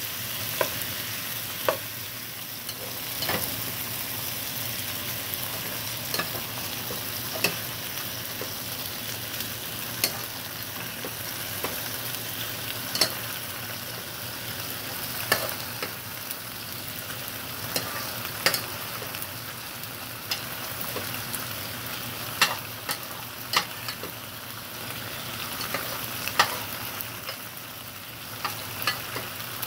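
Pan of penne, shredded chicken and peppers sizzling steadily while a metal spoon stirs it, knocking and scraping against the pan every second or two.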